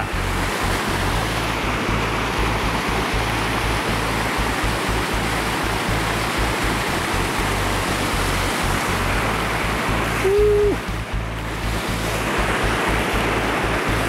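Mountain stream water rushing steadily over a small waterfall. About ten seconds in there is a brief, low, flat tone.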